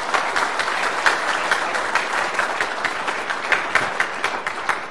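Audience applauding: many hands clapping together in a dense patter that thins out near the end.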